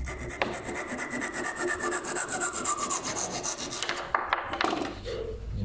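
A hand tool rasping against wood in a fast, even rhythm of about ten strokes a second, stopping a little before the end, followed by a few sharp clicks.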